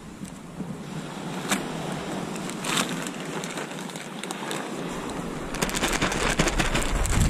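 Wind and sea waves, with gusts buffeting the microphone. There are a couple of sharp clicks early on and a rapid run of crackling clicks near the end.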